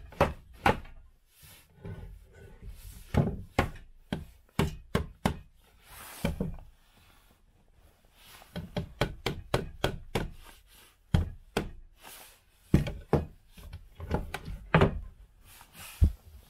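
Mallet knocking a tight wooden tenon into its angled mortise: runs of sharp wood knocks, with a short lull about halfway through.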